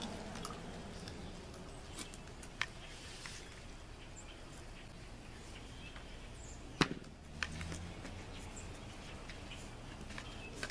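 Handling of 1.5-inch PVC pipe being glued and fitted into a coupling: a few light clicks and knocks, the sharpest about seven seconds in.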